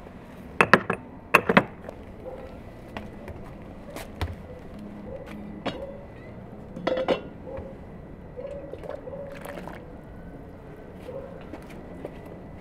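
Sharp clinks of kitchen utensils against a bowl, the loudest about a second in. Later come a metal pot lid clanking and hot water being scooped and poured from a steaming aluminium pot into a metal saucepan.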